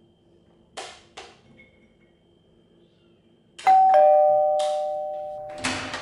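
A few light clinks of a serving utensil against a ceramic bowl. Then, past the halfway mark, a two-tone doorbell chime rings, a higher note followed by a lower one, both ringing on and fading slowly.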